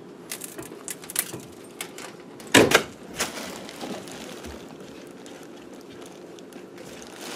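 Scattered clicks and knocks of hands and tools working at the drain pipes under a kitchen sink, with one louder knock about two and a half seconds in, then a faint steady hum.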